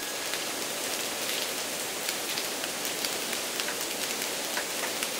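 Outdoor ambience on a lakeshore: a steady hiss with many small, scattered ticks and crackles. There is no rain.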